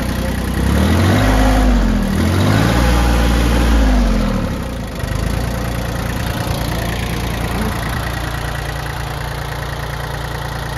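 Iseki Landhope 147 compact tractor's three-cylinder Mitsubishi diesel revved up twice and let fall back, then settling to a steady idle.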